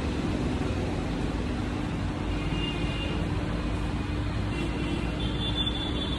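Royal Enfield Shotgun 650's 648 cc parallel-twin engine idling steadily.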